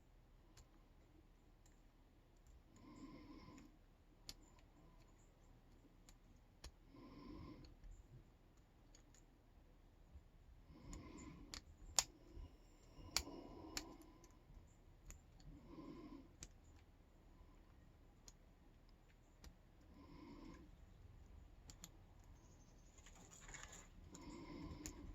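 Faint, scattered clicks of a metal lock pick and tension tool working the pins inside a Yale K300 padlock during single-pin picking, the sharpest two clicks about a second apart midway. Softer sounds recur about every four seconds.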